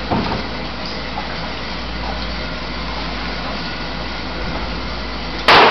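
Steady background hum, then near the end a single loud pistol shot, sharp and sudden, with reverberation after it.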